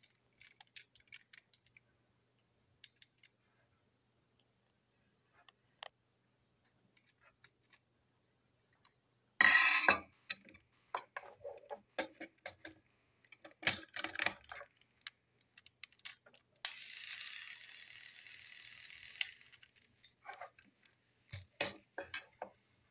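Small hard plastic toy-train parts clicking and clattering as they are handled and fitted together, with a few louder clatters. In the second half comes a steady whir lasting about two and a half seconds.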